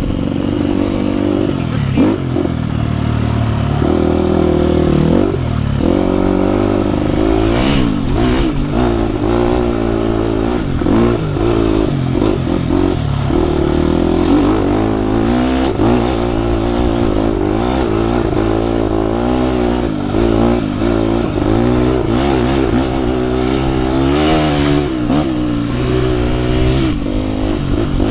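2007 KTM 250 EXC-F dirt bike's single-cylinder four-stroke engine being ridden hard, its pitch rising and falling constantly as the throttle is worked on and off. A few short knocks and clatter from the bike are mixed in.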